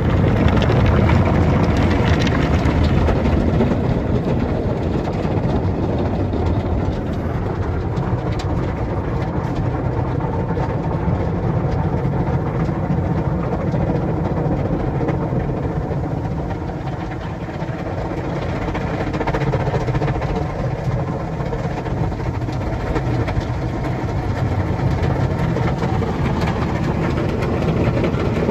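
Tunnel car wash heard from inside the car: water spray and soft-cloth wash material hitting and rubbing over the windshield and body, a loud, steady wash with a low rumble under it.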